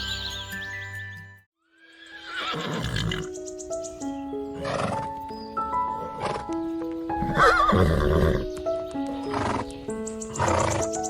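A horse whinnying, with other noisy horse sounds, over background music, after a brief silence about a second and a half in. The clearest whinny comes a little past halfway, a wavering call.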